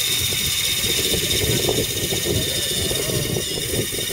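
Radio-controlled 6x6 crawler truck driving slowly over dirt, its electric motor and gears whining steadily over a rough low rumble.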